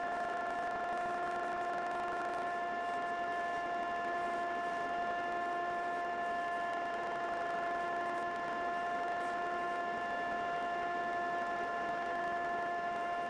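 Knifemaking belt grinder running steadily, giving a constant, even whine.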